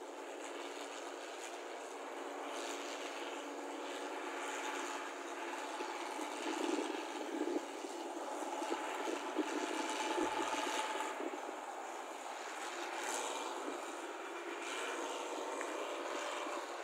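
New Holland combine harvester running under load as it harvests rice paddy: a steady mechanical drone from its engine and threshing machinery, with a faint held tone, swelling a little midway.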